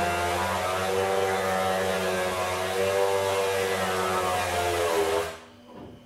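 Chainsaw running at high speed, its engine pitch wavering slightly up and down, then cutting off about five seconds in, leaving only a faint hum.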